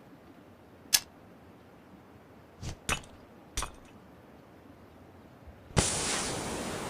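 Sharp metallic clicks of a pistol's mechanism being handled: one crisp click about a second in, then a quick pair and a third click a little under three seconds later. Near the end a sharp hit gives way to a steady rushing noise that cuts in suddenly and keeps going.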